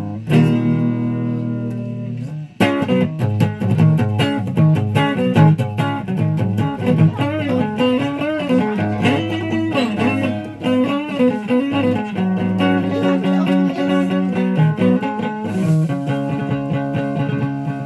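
Guitar being played: a chord rings and fades for about two and a half seconds, then a busy run of picked notes follows, some bent or wavering in pitch.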